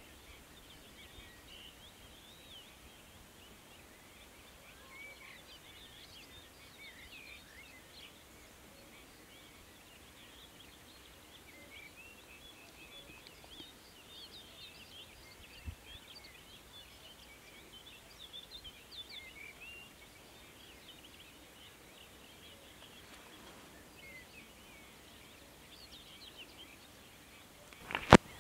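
Small birds singing in the background: many short chirping, warbling notes over a faint steady outdoor background. A sharp click comes near the end.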